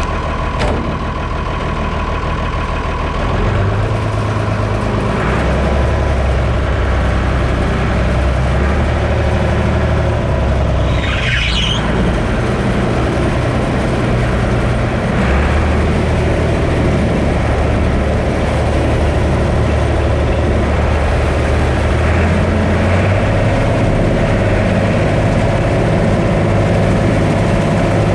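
Combine harvester running under load while harvesting corn, a steady heavy engine and machinery drone whose low hum changes pitch a few times. A brief hiss about eleven seconds in.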